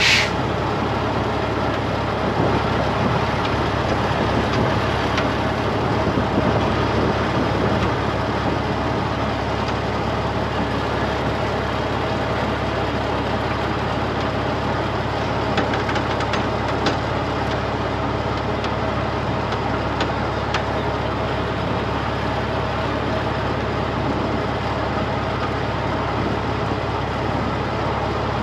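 Heavy-duty tow truck's diesel engine running steadily at idle, with a short sharp click at the very start.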